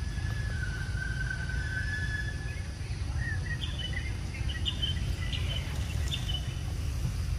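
Outdoor ambience: a steady low rumble under bird calls, a thin held whistle for the first couple of seconds, then a run of short high chirps.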